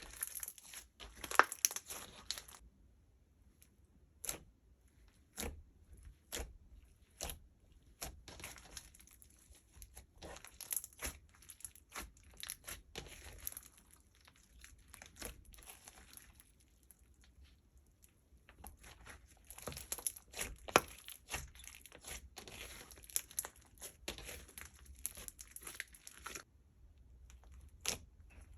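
Sticky slime being worked by hand, giving runs of crackling and sharp clicking pops, with quieter pauses broken by single clicks.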